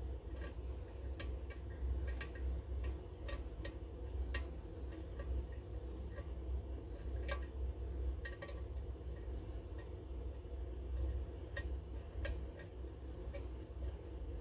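Small, irregular metallic clicks as a lock pick and tension tool work the pin stack of a Goal GCY-79 pin-tumbler lock, over a steady low hum.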